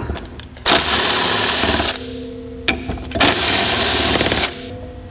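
Cordless impact driver with a 10 mm socket running in two bursts of a little over a second each, rattling out the cap bolts of a snowmobile primary clutch.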